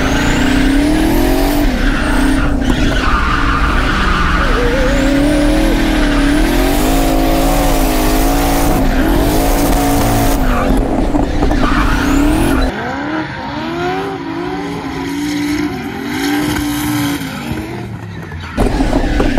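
Twin-turbo 5.3-litre V8 of a Corvette C6 drift car revving up and down through a drift, with the tyres skidding, heard from inside the car. It drops quieter and duller for several seconds past the middle, then gets loud again near the end.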